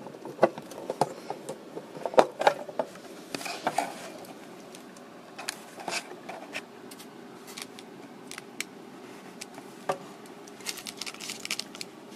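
Hard plastic case of a transistor radio kit being handled and opened: a run of sharp clicks and taps in the first few seconds, then lighter scattered clicks and fine ticking near the end.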